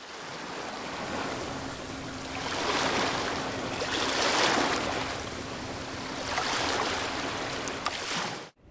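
Ocean surf: a rushing wash of waves that swells and fades several times, with a faint steady hum underneath, cutting off abruptly near the end.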